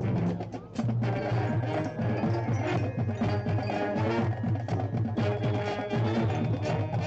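High school marching band playing its field show: brass and woodwinds sounding chords over marching percussion and front-ensemble mallet and timpani hits, with a brief drop in level about half a second in.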